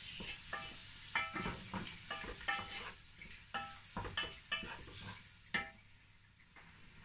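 Wooden spoon stirring prawns frying in palm oil in a metal pot: about a dozen knocks and scrapes against the pot, each with a short ring, over a faint sizzle. The knocks stop near the end.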